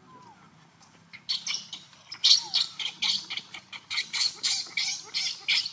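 A macaque screeching in a fast run of harsh, high cries, about four a second, starting just over a second in.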